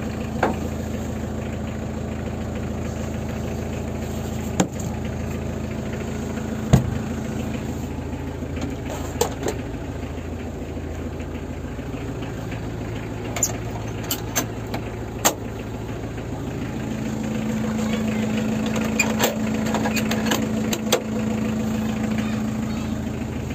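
Mitsubishi L300's four-cylinder diesel engine idling steadily, heard from inside the cab, a little louder over the last few seconds. Scattered sharp clicks and knocks come through the hum.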